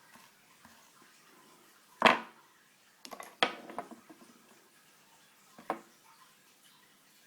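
Small hard parts of a telephone being handled and set down on a work surface: a sharp knock about two seconds in, a quick run of clicks and rattles about a second later, and one more click near the end.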